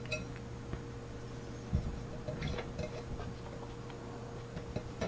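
Light scattered metal clicks and clinks from handling a padlock and lock-picking tools, several in quick succession from about two seconds in, over a steady low hum.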